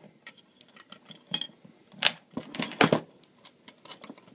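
Metal clicks and clinks of a dog-proof coon trap being reassembled by hand, its trigger parts and chain jingling against the workbench. They come irregularly, the loudest about two and three seconds in.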